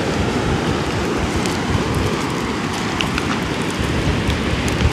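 Wind buffeting the microphone over the steady rush of the sea, with a few faint ticks of water about the middle.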